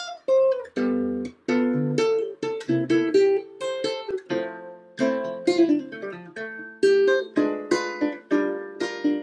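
Sped-up instrumental intro on plucked guitar: a run of picked single notes and chords, each struck sharply and ringing out, the speed-up making it sound high and light like a ukulele.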